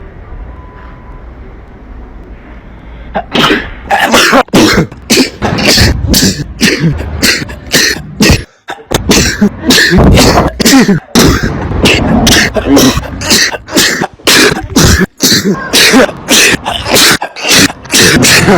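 A person sneezing loudly over and over in quick succession, about two to three explosive sneezes a second, starting about three seconds in after a quieter stretch.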